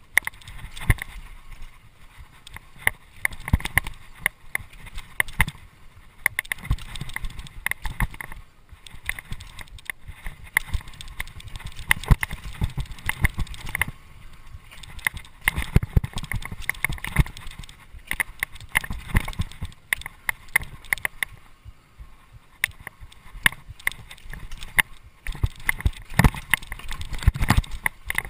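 Mountain bike rattling and clattering at speed down a rough dirt trail: a constant, uneven run of sharp knocks from the frame and parts over bumps, over a low rumble of the tyres.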